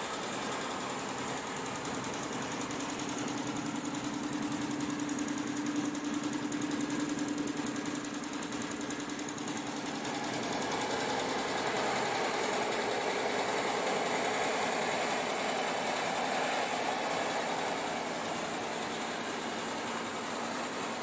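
Multi-head Shengming embroidery machine running, its needles stitching in a rapid, steady mechanical clatter. About halfway through, the sound turns brighter and slightly louder.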